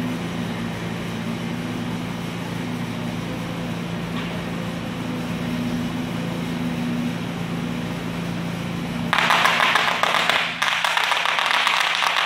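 Steady low hum as a forklift creeps forward, then about nine seconds in a sudden, dense crackle of rapid pops as bubble wrap bursts under the forklift's tyres, with a short lull about a second and a half later.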